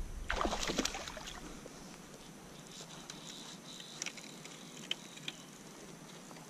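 Water splashing and sloshing briefly about half a second in, then a faint steady rush of river water with a few light clicks.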